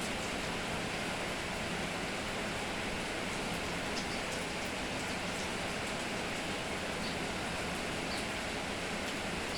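Steady rain falling, an even hiss with a few faint single drop ticks now and then.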